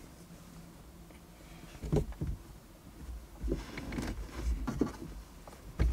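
Cloth rustling and a few dull thumps as a sheet is spread and tucked over a car's passenger seat, heard from inside the cabin. A sharp knock comes about two seconds in, more rustling and bumps follow over the next few seconds, and another sharp knock comes near the end.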